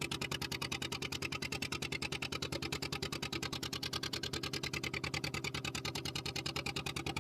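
A small fishing boat's engine running steadily under way, with a rapid even chugging of about ten beats a second.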